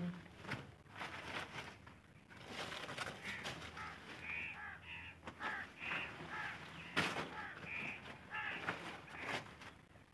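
A bird calls over and over in short calls, about two a second, from a few seconds in until near the end. Under it come sharp rustles and knocks from a plastic sack being handled, the loudest about two-thirds of the way through.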